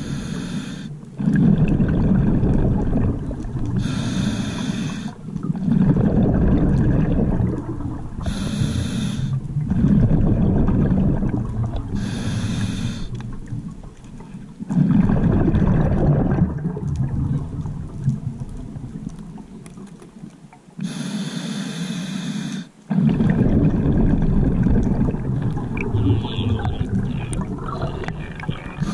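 Scuba diver breathing underwater through a regulator. Each breath is a short hiss of inhaling, followed by a longer low rumble of exhaled bubbles, repeating about every four seconds. There is a longer pause and a longer inhale just before the last exhale.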